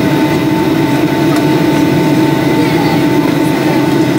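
Steady cabin drone of a Boeing 757-204 in flight: engine and airflow noise heard inside the fuselage, a rumble with a thin steady whine over it.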